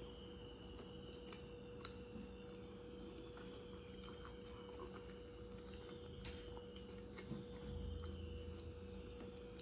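Faint, scattered clicks and small wet ticks of eating by hand: fingers scooping curry from a plastic bowl and tearing chapathi. A steady hum runs underneath, with a brief low rumble near the end.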